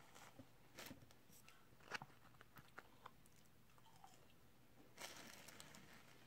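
Faint close-up chewing and mouth sounds of a person eating fast food, with scattered soft clicks and a brief rustle about five seconds in.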